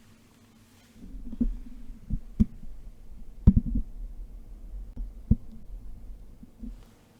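Mechanical keyboard with linear Cherry MX Black switches on a polypropylene plate, giving a handful of scattered, deep-sounding strokes. About eight irregular thuds and clicks over a low rumble start about a second in, the loudest near the middle.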